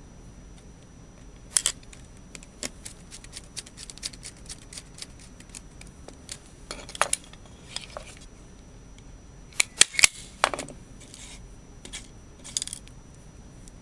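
Scattered sharp clicks and short scrapes of hand work on DIN-rail screw terminal blocks, as a wire stripper and a small screwdriver strip wires, fit them and tighten the terminal screws. The loudest is a quick cluster of clicks about ten seconds in.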